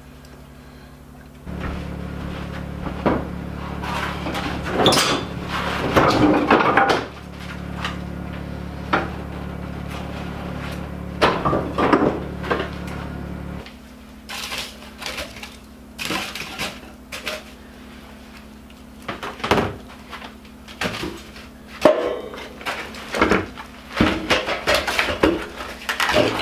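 Repeated knocks and clatter of hard objects being handled, over a steady low hum that starts about a second and a half in and stops about thirteen and a half seconds in.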